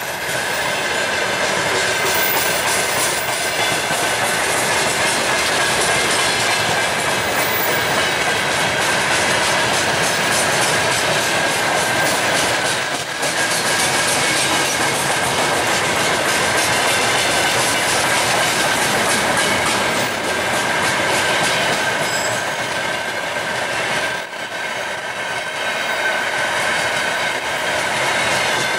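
Loaded freight wagons rolling past close by: a steady loud rumble of steel wheels on rail with an even clickety-clack over the rail joints. A thin steady high whine rides on top.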